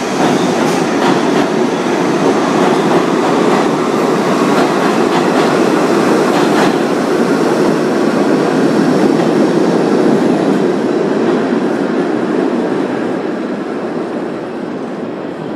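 R62A subway train pulling out of the underground station, a loud rumble with wheels clicking over rail joints in the first few seconds, echoing off the vaulted tiled station. The rumble fades near the end as the train moves off into the tunnel.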